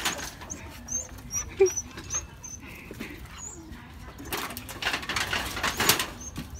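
Rummaging through a heap of scrap corrugated sheets and debris: rustling and scraping, loudest in a few noisy bursts between about four and six seconds in. A string of short high chirps runs through the first few seconds.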